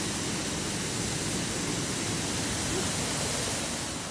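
Rushing mountain stream: a steady, even rush of water that eases slightly near the end.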